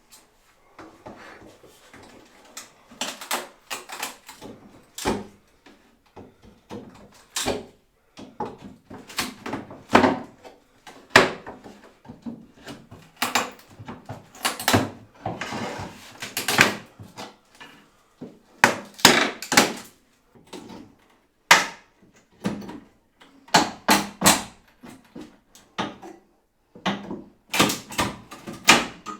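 Irregular wooden knocks, bangs and clatter, coming in clusters with short pauses, as wood is worked loose.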